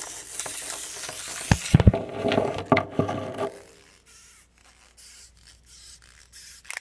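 Handling noise: rubbing and scraping with a few sharp clicks and knocks, busiest in the first half and then quieter with scattered clicks, as the camera and small plastic wind-up toys are moved about.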